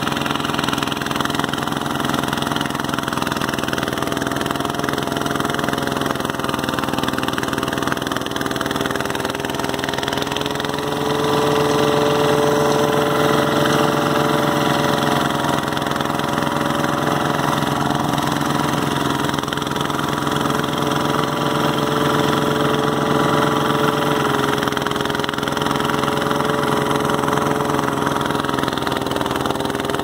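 Engine-driven portable rice thresher running steadily while bundles of rice stalks are fed into its drum and the straw and chaff are blown out. It gets a little louder about eleven seconds in.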